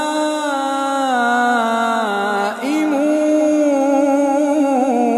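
A man chanting the Quran in melodic tajweed style, drawing out long held vowels that slowly bend and fall in pitch, with a short break for breath about two and a half seconds in.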